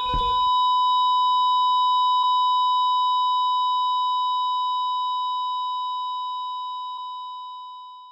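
One long, steady electronic beep held for about eight seconds, slowly fading away near the end: a heart-monitor flatline sound effect.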